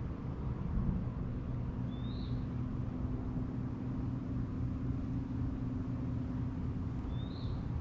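Fishing reel being cranked steadily to retrieve a lure, a steady hum over a low rumble. A bird gives two short chirps, about two seconds in and near the end.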